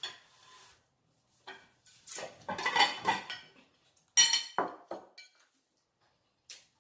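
Plates and cutlery clattering on a table as dishes are moved, with a sharp ringing clink a little after four seconds in.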